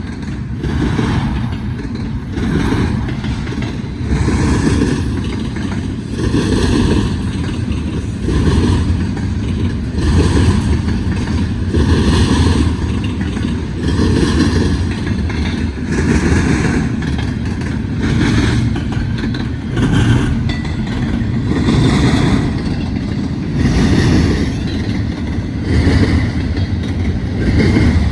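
Freight train cars rolling past with a heavy rumble and a rhythmic clatter that swells about every two seconds as each car's wheels go by.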